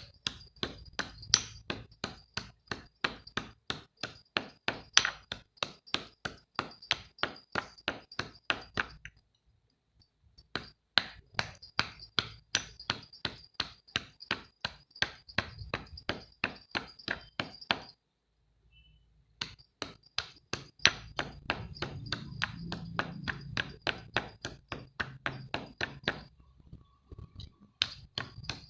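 Rapid, even hard knocks, about three or four a second, like something being struck or crushed over and over, stopping twice for a second or two.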